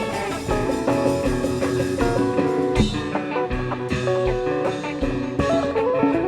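Kompa band playing an instrumental groove: guitar lines over bass and a drum kit, with no singing.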